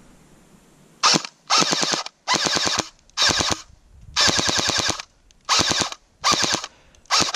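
Airsoft Sten electric gun (AEG) firing on full auto in eight short bursts, each a rapid run of shots with its gearbox buzzing. The first burst comes about a second in.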